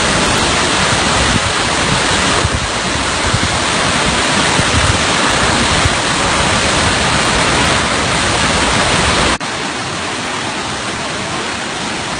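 A 121-metre man-made waterfall: a loud, steady rush of falling water. About nine seconds in it drops suddenly to a quieter rush with less low rumble.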